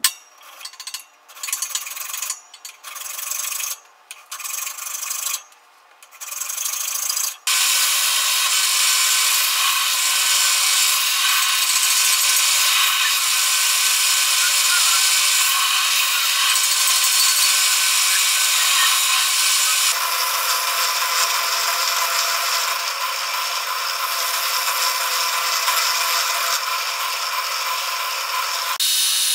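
A hand file rasping across a steel knife blade in about five strokes over the first seven seconds, then a belt sander grinding the blade with a steady hiss that stops near the end.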